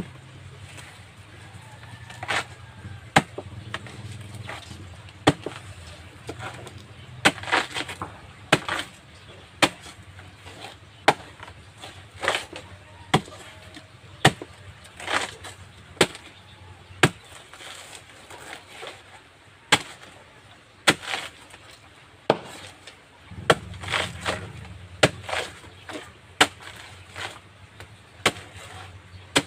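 Machete chopping through a banana trunk laid on a board: a run of sharp chops, roughly one or two a second and unevenly spaced.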